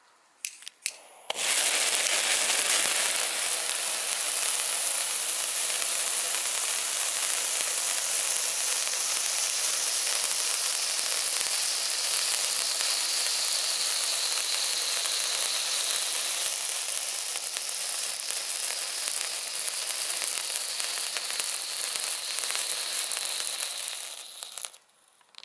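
Cialfir Huevos, small egg-shaped F1 ground fountains, spraying sparks with a steady loud hiss and crackle. It starts abruptly after a few sharp clicks about a second in, and dies down near the end as the fountains burn out.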